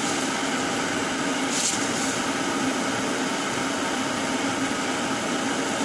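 Steady, even whooshing noise with a faint low hum in a home kitchen while a pot cooks on the stove, with no clinks or knocks.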